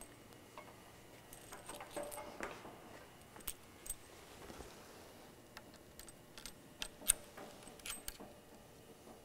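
Faint, scattered small metallic clicks and clinks, about a dozen spread over several seconds, as small parts and the welding torch are handled and fitted to the manipulator's rail.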